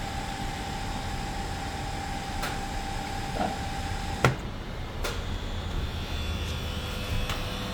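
Mini plastic extruder machine running steadily, a constant machine hum with a faint high whine. The whine cuts off with a sharp click about four seconds in, and a few lighter clicks come before and after it.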